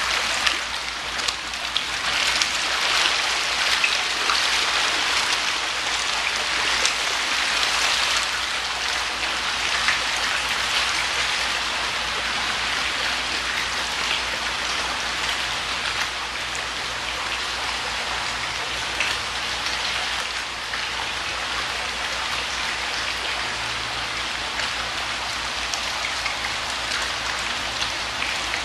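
Dense pattering and splashing of hundreds of small koi, about 5 to 6 inches long, churning at the water's surface, like heavy rain on a pond; busiest in the first ten seconds or so, then a little steadier.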